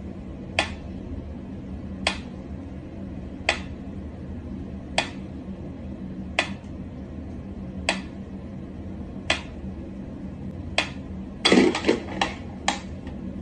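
Mechanical pendulum metronome ticking slowly and evenly, about one sharp tick every second and a half. Near the end comes a quick cluster of several louder knocks and clicks.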